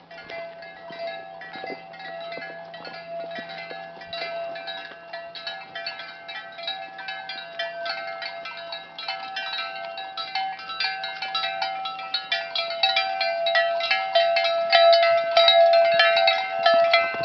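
Cowbells on a herd of walking dairy cows, clanking irregularly and getting louder as the cows come up close.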